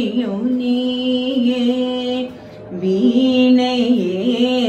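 A woman singing a Carnatic devotional song in Tamil, drawing out long held notes on a vowel with small slides between pitches. There is a short breath about two and a half seconds in.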